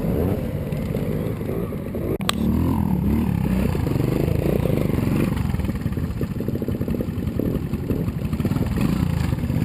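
Vintage trials motorcycle engine running at low speed and being blipped, its pitch rising and falling as the bike climbs a section, with one sharp knock about two seconds in.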